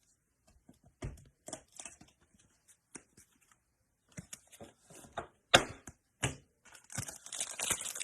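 Trading card pack wrapper being handled and torn open: scattered small crinkles and clicks, two sharper snaps a little past the middle, then steady crinkling of the wrapper near the end.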